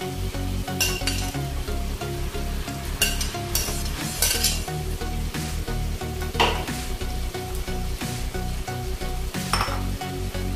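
String beans and sliced beef sizzling in a hot frying pan while being stirred and tossed with a metal spatula, the utensil scraping the pan several times.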